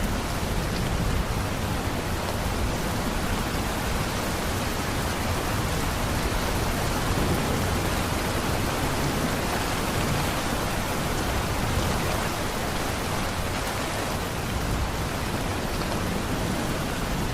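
Steady rain falling, an even hiss with a low rumble underneath and no distinct thunderclaps.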